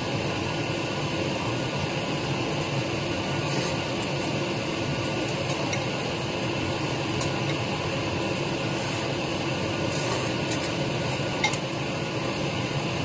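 Steady background hiss and hum. A few faint clicks and small eating noises from chopsticks working noodles in a bowl are heard over it.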